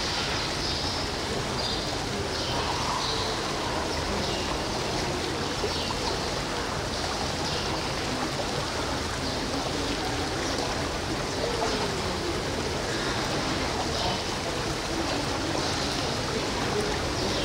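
Steady rushing background noise at an even level, like running water or air handling, with faint indistinct higher sounds over it.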